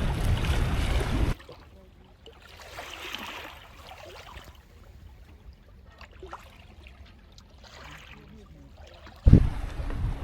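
Wind buffeting the microphone over sea noise on a sailing yacht, which cuts off abruptly after about a second. Then quieter water lapping and trickling follows, until the wind noise returns suddenly near the end.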